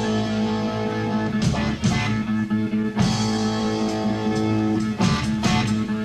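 Rock music played from a vinyl record: a guitar-led passage of held chords over bass, with a few sharp beats.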